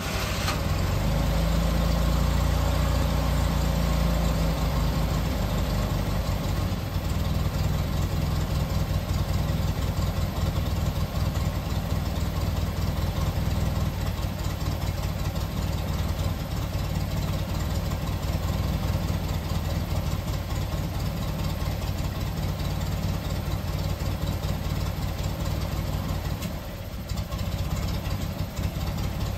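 Classic Fiat 500's air-cooled two-cylinder engine idling just after starting, a little stronger for the first few seconds and then running steadily.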